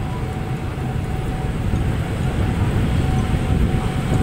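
Passenger train rolling slowly, heard from aboard the coach: a steady low rumble of the wheels on the rails and the running train.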